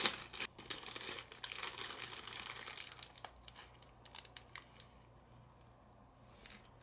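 Paper food wrapper crinkling and rustling as a snack is unwrapped and held for eating. The crackling is busiest over the first three seconds and fainter after.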